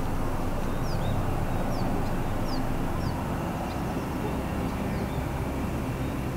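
Steady low rumble of distant engine noise, with a bird giving several short, high, falling chirps over the first few seconds.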